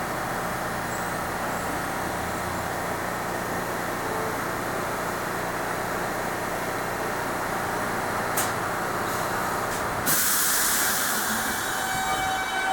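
Subway train standing with a steady low hum from its equipment, then about ten seconds in a sudden loud hiss of air from its air brakes that fades over a second or two.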